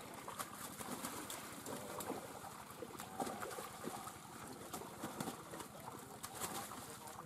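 Irregular small splashes and clicks of pond water as fish flap and are handled in a net in shallow water.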